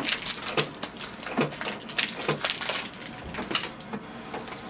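Ink cartridge packaging crinkling and tearing as it is pulled off by hand: a rapid, irregular run of crackles and small snaps.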